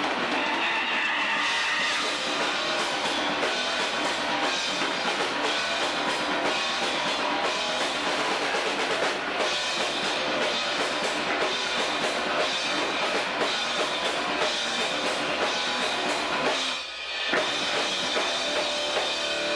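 Rock band playing at full volume: drum kit, electric bass and electric guitar together, dense and loud, with a short stop near the end before the band comes straight back in.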